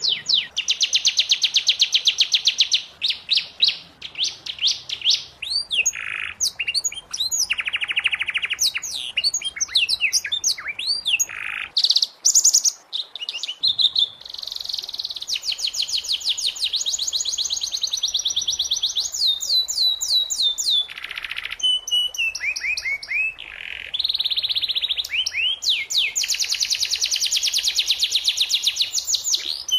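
Domestic canary singing a long, varied song of fast trills and rolls, each phrase a rapid run of repeated high notes, with short pauses between phrases.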